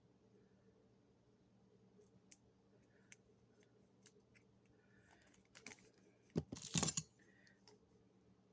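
Small items being handled: scattered faint clicks, then a brief rustle of packaging about six and a half seconds in.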